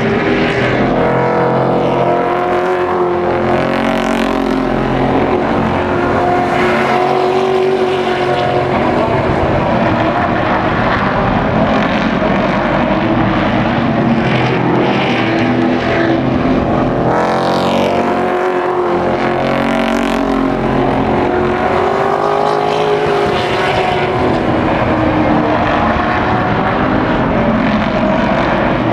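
Several racing trucks' engines running hard around a short oval track. The overlapping engine notes rise and fall as the trucks lap and pass.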